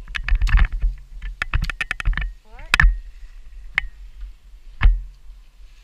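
Ski gear clicking and knocking during a run through trees: a quick run of clicks over the first two seconds, then three single knocks spaced about a second apart. A steady low rumble lies under it.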